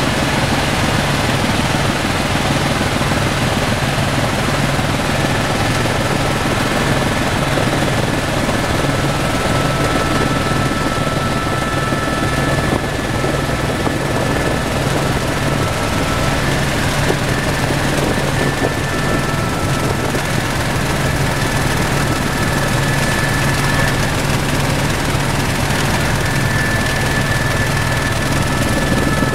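Tour helicopter in flight heard from inside the cabin: steady rotor and engine noise, with a thin high whine that fades in and out.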